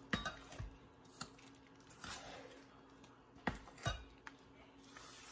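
Faint clinks of a utensil knocking against a bowl of cake batter while it is folded: a handful of light, sharp clicks, with a soft scrape about two seconds in.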